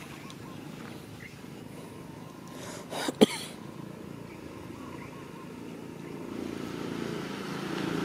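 A motorbike engine running on the road, growing louder over the last two seconds as it approaches. A single short, sharp sound cuts in loudly about three seconds in.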